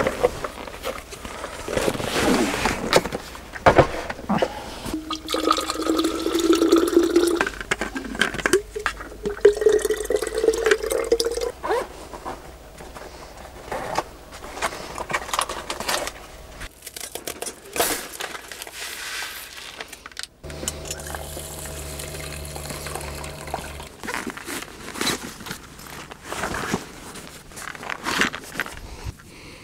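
Water pouring and splashing in several pours, the pitch rising as a container fills. About two-thirds of the way in this gives way to a low steady hum for a few seconds.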